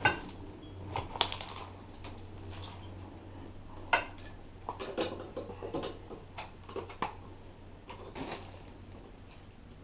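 Irregular metallic clinks and knocks as tools and parts are handled at a metal lathe during setup, with the sharpest knocks right at the start and about four seconds in. A steady low hum runs underneath.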